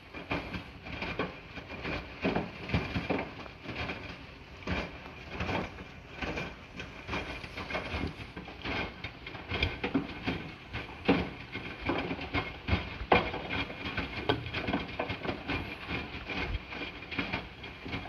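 Hotpoint NSWR843C front-loading washing machine tumbling a load mid-wash: wet laundry sloshing and dropping in the turning drum, with irregular thuds and splashes, one or two a second.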